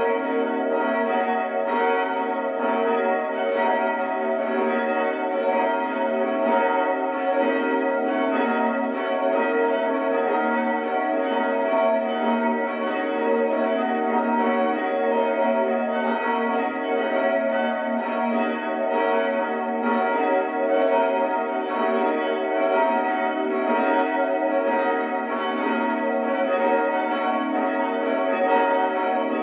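Several church bells ringing together in a continuous peal, their tones overlapping and sustained.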